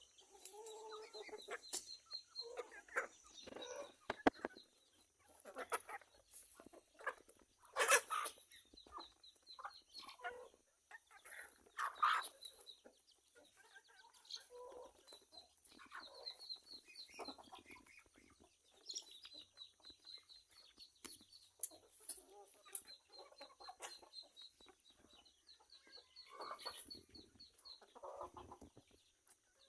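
Chickens clucking in short, irregular calls, with a rapid high chirping running through much of the time and a few louder calls.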